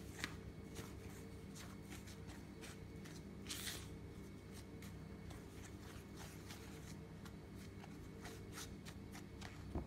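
Silicone spatula stirring and scraping a dry flour mixture in a wooden bowl: a quick run of soft scrapes and swishes, with one longer swish about three and a half seconds in.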